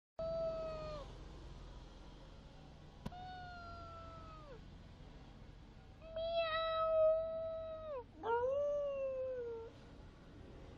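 Spitz dog howling: four drawn-out, high, whining calls, each held steady and then sliding down in pitch at its end, the last two almost back to back. This is his reaction to hearing high-pitched sounds.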